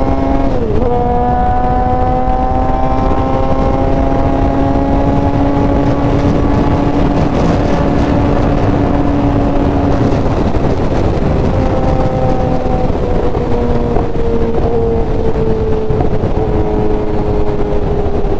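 Suzuki GSX-R 750's inline-four engine running at highway speed, heard from the saddle under heavy wind rush on the microphone. The engine note dips sharply for a moment about a second in, then holds steady and slowly falls in pitch over the second half.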